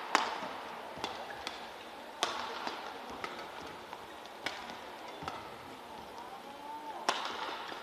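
Badminton rackets striking a shuttlecock back and forth in a rally: a string of sharp smacks, with the loudest just after the start and again about a second before the end. A short squeak from a player's shoe on the court comes as a player lunges to the net.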